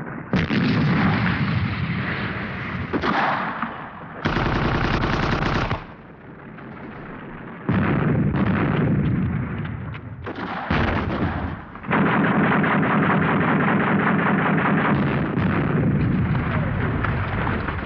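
Battle gunfire: machine guns firing in long bursts with other shots. The firing stops and starts several times, then runs without a break through the last third.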